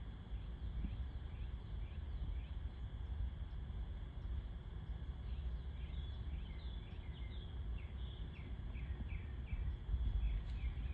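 Small wild bird chirping over and over in short falling notes, busiest in the second half, over a steady low outdoor rumble.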